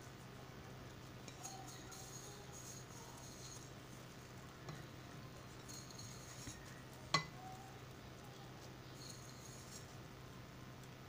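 Faint pattering of nigella and sesame seeds being sprinkled over glazed bread dough on a baking tray, in a few short spells. A single sharp clink about seven seconds in.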